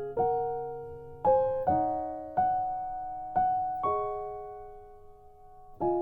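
Background music: slow, gentle piano playing single notes and chords, each struck and left to ring and fade.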